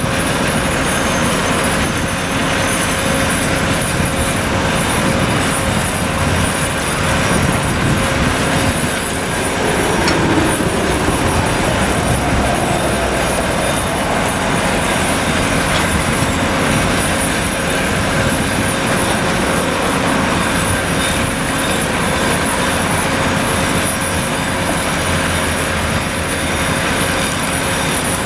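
Hydraulic crawler excavator running under load as it digs and loads soil into a dump truck. The diesel engine and hydraulics keep a steady, loud drone with a high whine held throughout.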